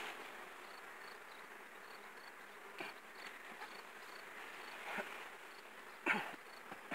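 Honey bees buzzing around open hives, a faint steady hum, with a few soft knocks, the loudest about six seconds in.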